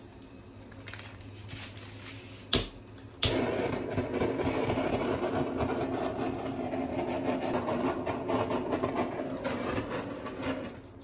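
Handheld gas torch with a blue flame: two sharp clicks, then the flame hissing steadily for about seven seconds before it cuts off near the end.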